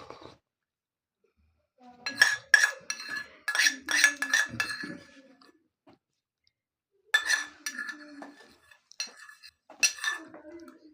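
Metal cutlery clinking and scraping against dishes, in two runs of quick ringing knocks.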